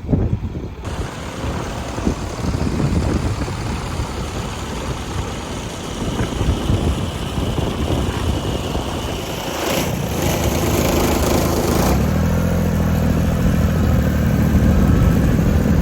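Tractor engine running, rough and noisy at first, settling into a steady note that grows louder over the last few seconds.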